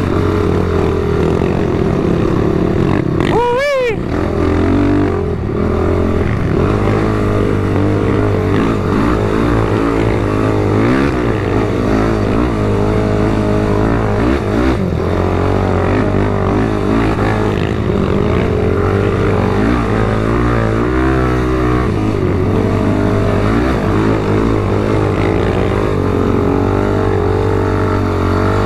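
ATV engine running under throttle while being ridden through sand dunes, its pitch rising and falling with the throttle. It gives a brief sharp rev about three and a half seconds in.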